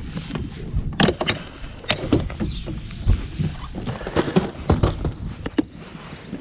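Plastic tackle boxes clattering and knocking as they are rummaged through and pulled from a bass boat's deck storage compartment: a string of irregular sharp clicks and thumps over a low rumble.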